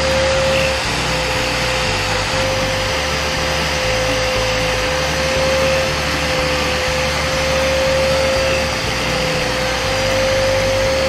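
Small rotary sander with an abrasive disc running at a steady high whine, its pad scouring rust off the steel blade of an old cutter with a gritty hiss.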